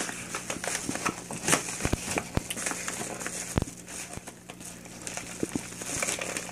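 Yellow paper bubble mailer being torn open and handled: crinkling, crackling paper with a few sharp clicks as the envelope is pulled apart and a hand reaches inside.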